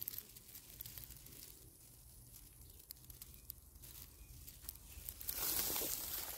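Faint crumbling and crackling of dry soil and dry grass stems under a hand pressing at the base of a thin stick. About five seconds in, louder rustling of dry grass with footsteps begins.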